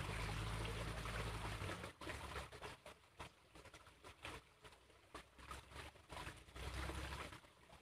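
Faint trickle of a small stream with scattered light clicks. A low rumble runs through the first two seconds and comes back a little before the end.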